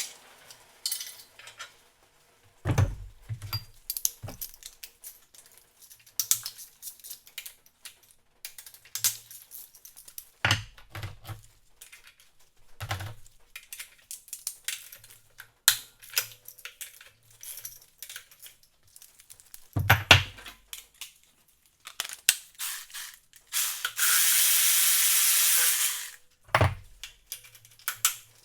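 Hand tools and metal engine parts clicking, clinking and knocking during an engine teardown, with several heavier thuds. Near the end, a steady hissing power or air tool runs for about two seconds and cuts off suddenly.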